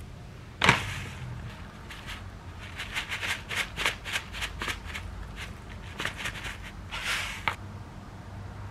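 A sharp click, then a run of quick rattling taps and a short shake near the end: a shaker of ground sesame seeds being shaken over a bowl of food.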